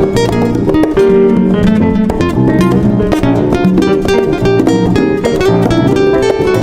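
Background music: fast plucked acoustic guitar.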